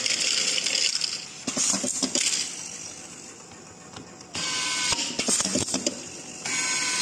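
Handheld automatic screw-feeding screwdriver at work: a hiss with clicks and rattles as screws are fed through its tube, then a steady motor whir for about two seconds, from about four seconds in, as it drives a screw into a wooden board.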